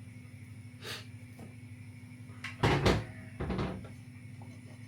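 A few knocks and bumps of kitchen handling, like a cupboard door or cookware being moved. There is a small click about a second in, then the loudest, a quick double knock followed by a third, between about two and a half and four seconds in. A steady low hum runs underneath.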